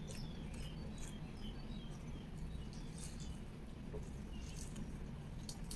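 Close-miked chewing of glutinous rice and beef serundeng, with small wet mouth clicks and smacks scattered through, over a steady low hum.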